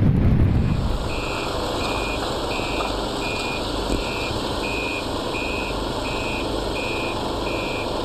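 Wind buffeting the microphone, cut off about a second in, then a vehicle's reversing alarm beeping at a steady pace, about three beeps every two seconds, over a steady background rumble.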